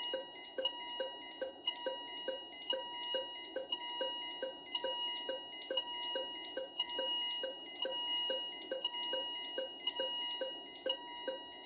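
Electronic alarm and beep tones from a Philips IntelliVue MP30 patient monitor and a ZOLL E Series defibrillator: steady high tones pulsing about once a second, over quick even ticks about three times a second.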